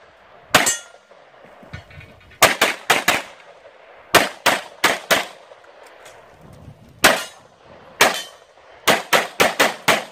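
Handgun shots fired in rapid strings of one to five, with short pauses between strings as the shooter moves or changes targets. The shot about half a second in is followed by a brief ring.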